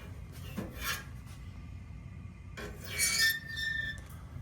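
A metal draft probe scraped and rubbed against the water heater's flue opening as it is pushed in: two short scrapes, about a second in and around three seconds in, the second carrying a brief high tone.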